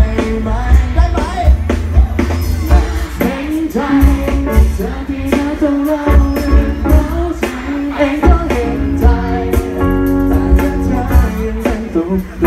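Live band playing a Thai pop song through a PA: male vocals over drums and bass, with a long held note about nine seconds in.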